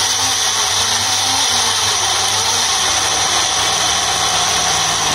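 Electric mixer grinder (mixie) running steadily, grinding chopped ripe bananas and palm jaggery into a paste.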